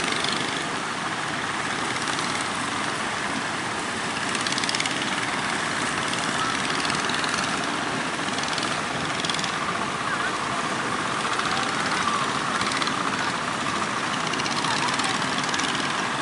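Rough surf breaking and washing up the beach, a steady unbroken roar of waves.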